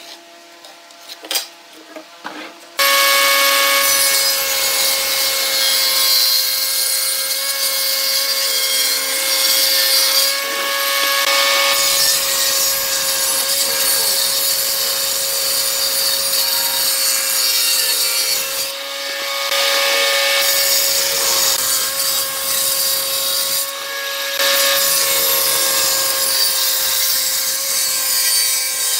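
A few light taps, then about three seconds in a table saw comes in suddenly, its blade ripping a rough-sawn wooden board lengthwise. A steady whine runs under a rasping cutting noise that eases briefly a few times as the board is fed through.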